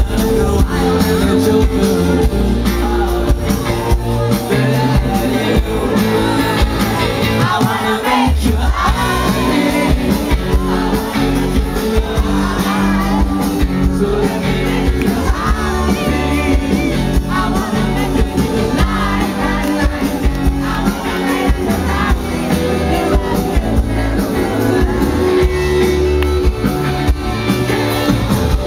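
Live rock band playing through a festival PA, with a singer's voice over drums, bass and guitars, heard loud from out in the crowd.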